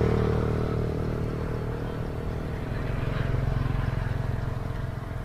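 Motor vehicle engine droning on the road as it passes, fading away, swelling a little around the middle, then fading again.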